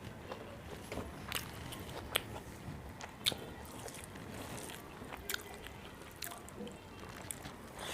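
Close-miked eating: biting and chewing a mouthful of rice, fish curry and raw green chili, with scattered sharp crunches and wet mouth clicks.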